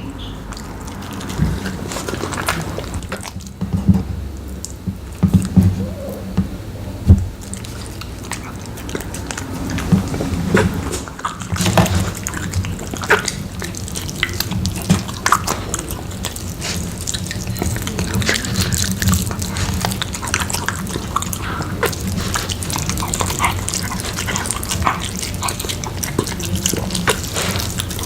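A dog eating rotisserie chicken close to the microphone: wet chewing, smacking and licking. Sharp clicks and thumps are scattered at first, then settle about halfway through into a denser, steady run of wet smacks.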